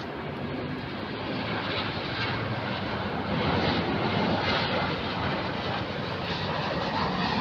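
Airliner's engines, a steady noise that grows gradually louder as the aircraft approaches.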